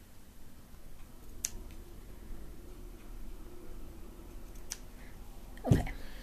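Scissors snipping fabric and thread: two faint, sharp snips, then a louder thump near the end.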